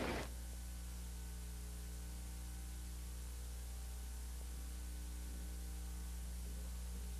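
Steady electrical mains hum with a faint hiss underneath, the background noise of an old analogue video soundtrack with no programme sound on it. A louder sound cuts off a fraction of a second in.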